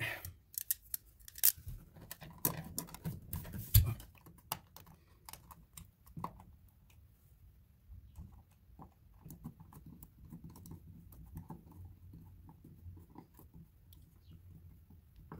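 An outlet faceplate being fitted over a receptacle and screwed down by hand: irregular light clicks and scrapes, busiest in the first few seconds with a sharper knock about four seconds in, then fainter scattered ticking.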